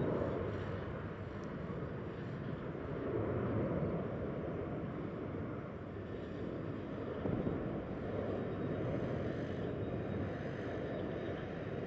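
Distant rumble of a Boeing 777's jet engines on final approach: a low, steady noise that swells and eases a few times, with a faint click about seven seconds in.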